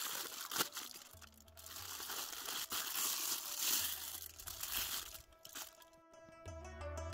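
Aluminium foil crinkling and crackling as hands press and smooth a foil-wrapped fish parcel, stopping about a second and a half before the end. Quiet background music with a repeating low bass runs underneath and grows louder near the end.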